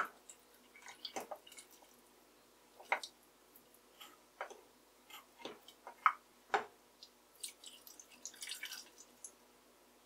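Small splashes, drips and knocks at a pot of soup: liquid poured into the broth, canned clams and their juice spooned in, and a plastic spatula tapping the pot. A sharp knock right at the start is the loudest; the rest comes in short, scattered sounds.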